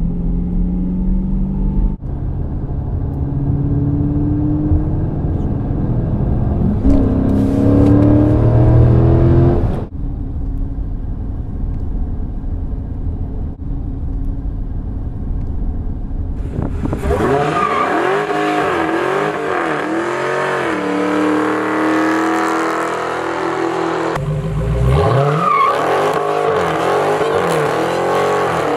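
Dodge Charger's V8 pulling hard under acceleration, its pitch climbing through the gears. After a cut it runs steadily, then from about halfway it is revved up and down again and again.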